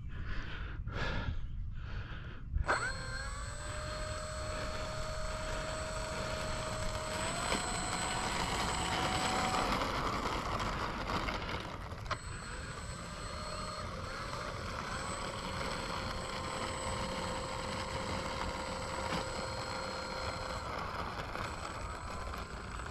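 Brushless electric motor and propeller of an E-flite P-51 Mustang RC plane whining at low throttle while it is on the runway. The pitch steps up once and the whine later resumes at a similar pitch, over a low rumble.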